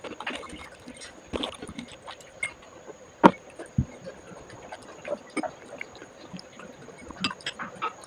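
A person chewing momos close to the microphone, with irregular wet mouth smacks and small clicks, and one sharper click about three seconds in.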